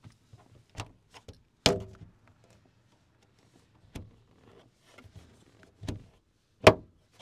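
A series of clicks and thunks from the van's interior fittings being worked by hand, with several sharp knocks; the loudest comes near the end, and another strong one about a second and a half in rings briefly.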